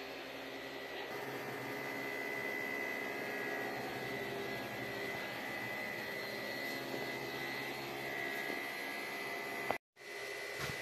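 Steady hum of refrigeration machinery from chilled seafood display cases and freezers, with a thin high whine over a lower drone. It cuts out for an instant near the end.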